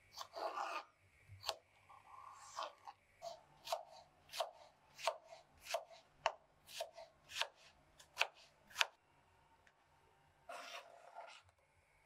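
Kitchen knife chopping celery stalks on a cutting board. It opens with a couple of crunchy cuts, then settles into a steady run of sharp chops about one and a half a second, and ends with a longer crunching cut near the end.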